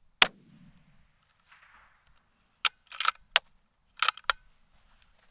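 A single rifle shot from a Browning A-Bolt bolt-action rifle, then about two and a half seconds later a quick run of sharp metallic clicks as the bolt is worked to eject the spent case and chamber the next round.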